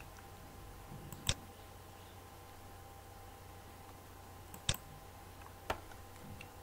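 Three sharp computer mouse clicks, spaced a few seconds apart, over a faint steady electrical hum.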